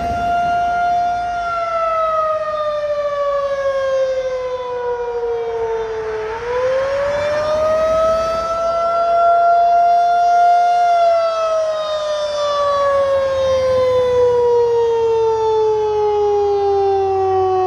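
Federal Signal 2001-SRN electromechanical tornado siren sounding during a monthly test. Its loud single tone holds, slides down in pitch, winds back up about six seconds in, then slides down again from about eleven seconds in.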